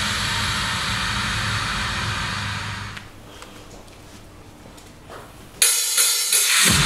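Changeover between two pop songs over a concert PA: a steady noisy wash fades out about three seconds in, leaving a quiet lull, then the next song's intro cuts in suddenly and loudly, thin and bright at first, with the bass joining just before the end.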